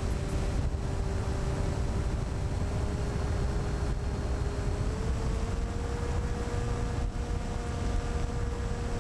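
Onboard sound of a Skywalker FPV plane in flight: heavy wind rush on the microphone over the steady whine of its Rimfire brushless outrunner motor and propeller. The whine steps up in pitch about five seconds in as the throttle is raised.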